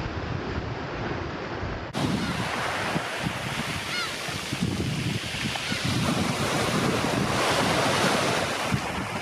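Sea waves washing on the shore, with wind buffeting the microphone in gusty low rumbles. The sound changes abruptly about two seconds in.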